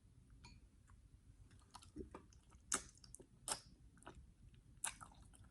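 A person eating seafood close to the microphone: faint chewing with scattered short wet clicks and smacks.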